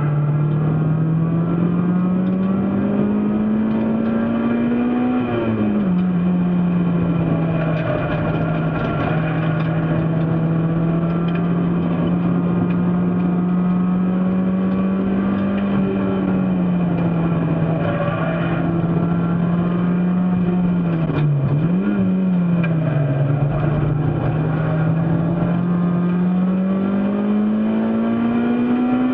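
Race car engine running hard under load. Its pitch climbs, then drops at a gear change about five seconds in, holds fairly steady, dips briefly about 21 seconds in, and climbs again near the end.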